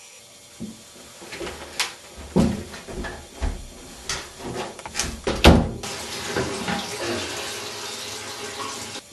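Hurried footsteps and thumps, with a loud bang about five and a half seconds in, then a steady rush of running water for about three seconds.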